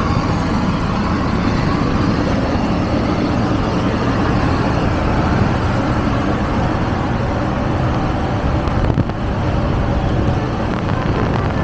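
Steady engine and road noise of vehicles driving on a highway, with a brief dip about nine seconds in. No horn is heard.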